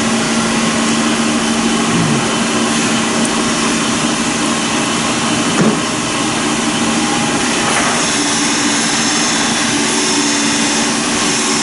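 Steady machine whir with a constant low hum, unchanging throughout, and a single light knock a little over halfway through.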